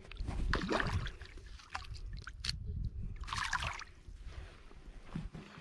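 Shallow lake water sloshing and splashing against a rocky shoreline right below a body-worn camera, with a few sharp knocks from the camera moving.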